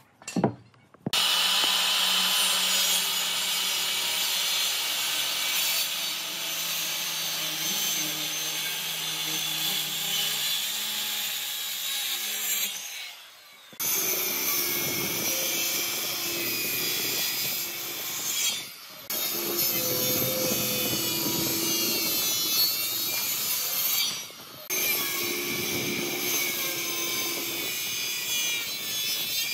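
Power tool working wood, a steady grinding, cutting sound that runs in several stretches with short breaks between them.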